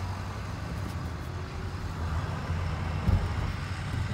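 Dodge Caravan minivan driving in city traffic, heard from inside the cabin: a steady low engine and road hum, with a thump about three seconds in.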